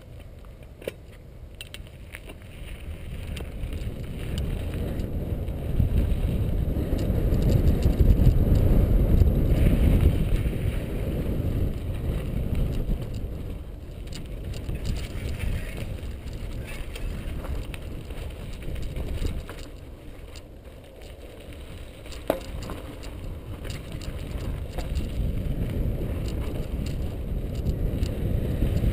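Mountain bike riding down a dry dirt singletrack: tyres rumbling over the dirt and wind buffeting the microphone, swelling loudest about a third of the way through and building again near the end. There are two sharp clicks, one about a second in and one past two-thirds of the way.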